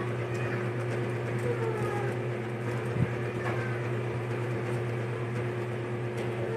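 Steady low machine hum throughout, with faint scattered clicks of chewing and one sharper click about three seconds in.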